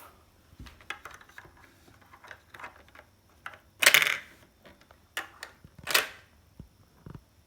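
Small plastic toy drinks clacking as they are pushed into the racks of a toy vending machine: scattered light clicks, with two louder clatters about four and six seconds in.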